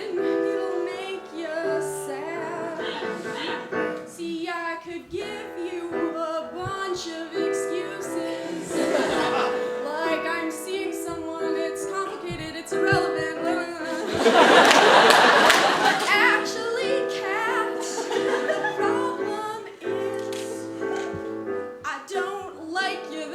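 A woman singing an improvised comic song over piano accompaniment, with swells of audience laughter about nine and fifteen seconds in.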